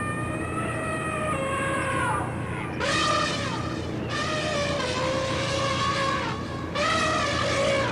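A drawn-out, pitched, horn-like sound of the kind reported as mysterious 'strange sounds' in the sky. It comes in long tones that sag slowly downward in pitch, with fresh swells about three seconds in and again near the end, over a steady low hum.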